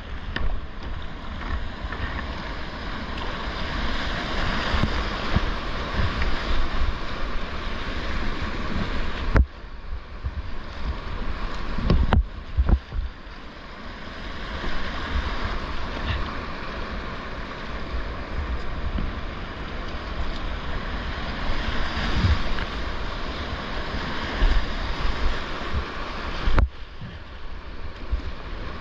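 Rushing whitewater of a rocky creek heard from a kayaker's action camera, with wind rumble on the microphone. The sound dips sharply three times, about 9, 12 and 27 seconds in, with a loud knock just after the second dip.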